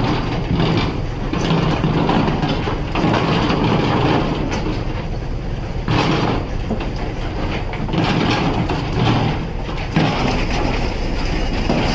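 Steady low rumble of a fishing vessel's engine and deck machinery, with occasional knocks and clatter as frozen fish are handled into metal bins.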